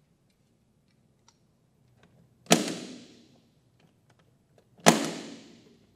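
Two sharp snaps of a spring-loaded impact punch-down tool seating cross-connect wire into the clips of a 66 punch-down block, about two and a half seconds apart, each trailing off over about a second.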